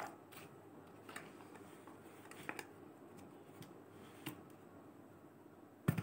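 Light clicks and knocks of plastic vacuum cleaner attachments being handled, with one sharper click near the end as a crevice nozzle is pushed onto the chrome extension tube.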